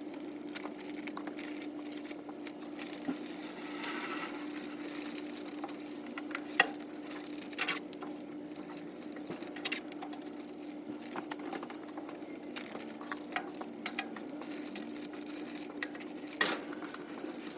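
Light rustling, tapping and clicking of stock being handled and packed, over a steady low hum.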